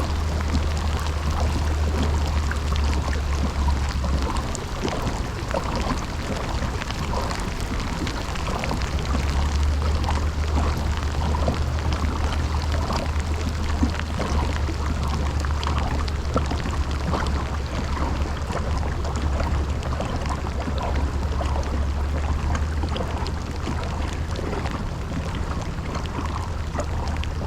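Heavy rain pouring down onto the water and the kayak, a dense hiss full of small drop ticks. A low steady hum runs underneath, dropping away for a few seconds about four seconds in before returning.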